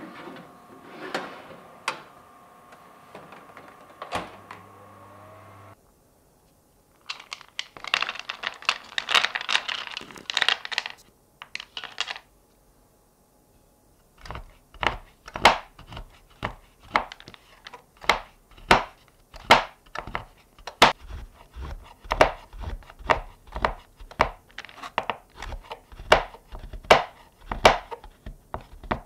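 A tart tin on a baking tray sliding into a countertop oven, with a steady hum and a few clicks. After a pause come a few seconds of dense clattering. From about halfway through, a chef's knife chops white chocolate wafers on a cutting board in sharp strokes, about two a second.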